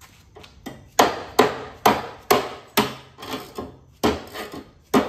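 Dead blow hammer striking a ratchet handle again and again, about two blows a second, to break loose a stuck mower blade bolt. The first taps are light, and the blows turn hard from about a second in.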